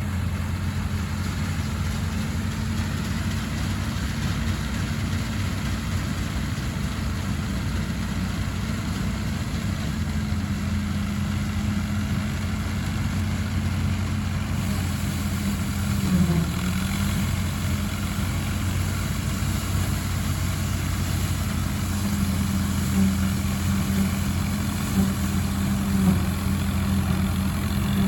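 Allis-Chalmers WD45 tractor engine running steadily while working an All-Crop 72 combine through wheat. The engine note dips briefly a little past the middle, and a few light knocks come near the end.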